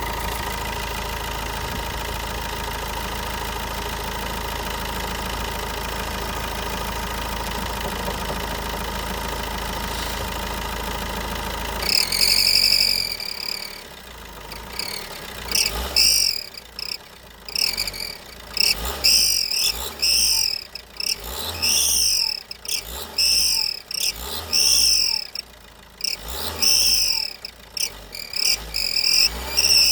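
Opel Astra H 1.3 CDTI four-cylinder diesel idling steadily with a thin, steady whistle under the bonnet, a whistle that remains with the alternator belt removed. About twelve seconds in, the engine sound gives way to a series of loud, high, repeated chirping calls.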